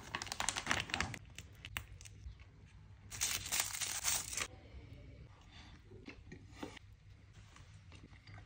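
Thin plastic film lid peeled off a plastic food tray, crackling sharply for about a second. A couple of seconds later a plastic chopstick wrapper is torn open and rustled for about a second and a half.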